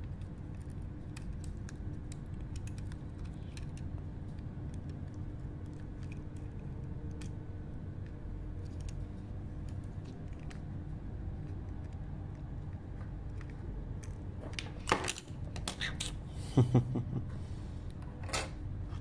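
Light plastic clicks and taps from handling the opened Reon Pocket 2 housing as the circuit board, battery and heatsink are slid out, with a few louder clacks about fifteen to seventeen seconds in, over a steady low hum.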